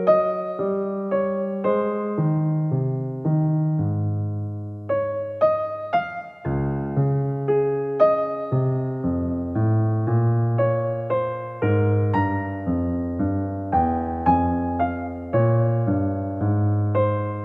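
Background piano music: a gentle melody of single struck notes, about two a second, over a low chord.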